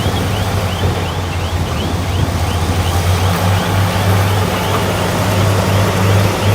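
Heavy earthmoving machine's diesel engine running steadily under load, with a high squeak repeating about two or three times a second that fades out near the end.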